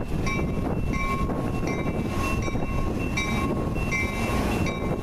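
Metra commuter train's bilevel passenger cars rolling past close by with a steady heavy rumble. A bell rings at an even pace, about three strokes every two seconds.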